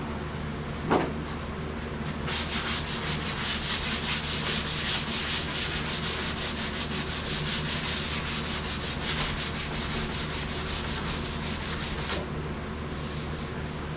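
Hand sanding of a vehicle cab's body panel: rapid, even back-and-forth sandpaper strokes for about ten seconds, then stopping abruptly. A single sharp knock comes about a second in, before the strokes start.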